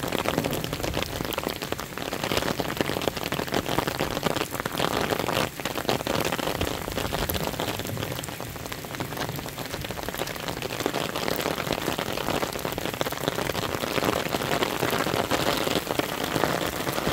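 Rain falling steadily on a wet asphalt road and the roadside plants, heard as an even hiss dotted with many close, sharp drop hits.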